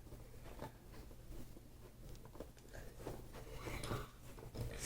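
Faint, scattered small clicks and rustles of hands working Play-Doh and its plastic pieces, over a low steady hum.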